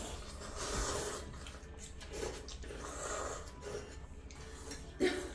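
People slurping ramen noodles from their bowls, in drawn-out slurps about half a second in and again around two to three seconds in.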